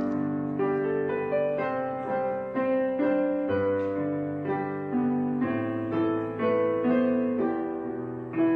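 Slow background piano music: held notes and chords, a new note or chord struck about every half second to second.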